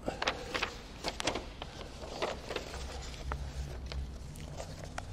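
Sheets of paper rustling and being handled at a lectern, a series of short crinkles and rustles with a few sharp clicks.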